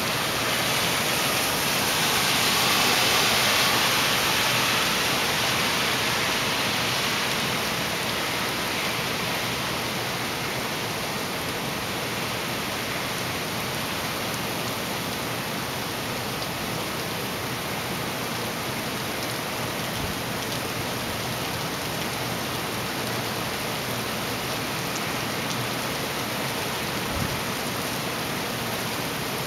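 Heavy rain in Hurricane Irene, a steady rushing hiss that swells louder for the first few seconds, then settles.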